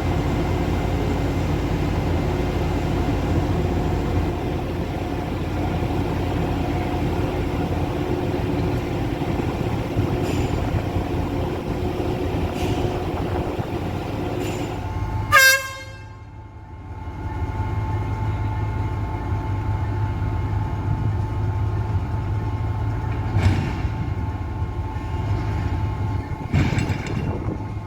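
Sri Lanka Railways S8-class diesel multiple unit's engine running steadily, with one short horn toot about halfway through. After the toot the engine runs on with a steady whine, and a couple of knocks are heard near the end.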